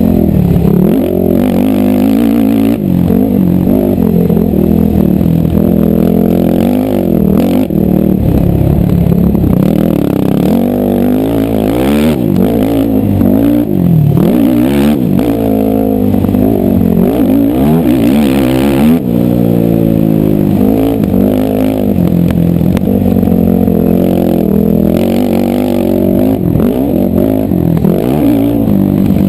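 Racing ATV engine running hard, its pitch rising and falling again and again as the throttle is opened and closed over the course.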